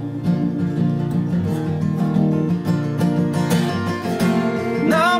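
Two acoustic guitars strumming with a bowed cello holding long notes, an instrumental passage of a slow song. A singing voice comes back in near the end.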